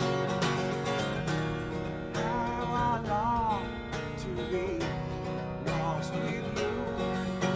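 Acoustic guitar strummed in a steady rhythm, with a short wavering melodic line above it about two to four seconds in.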